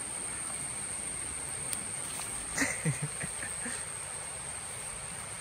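Steady outdoor hiss with a continuous high-pitched insect drone, broken by a couple of brief soft sounds about halfway through.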